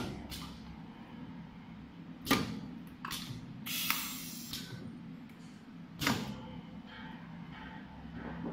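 Blower wheel welding machine at work: sharp metallic clacks about two, three and six seconds in, and a short hiss near four seconds, as the metal fan wheel is welded and handled, over a steady low hum.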